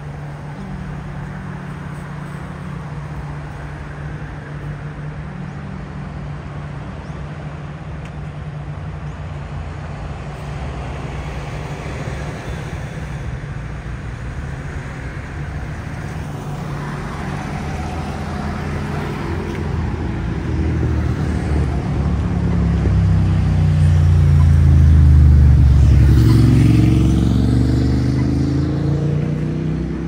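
City street traffic with a steady low engine hum. A motor vehicle's engine grows louder, passes close about three-quarters of the way through, and its engine note falls as it moves away.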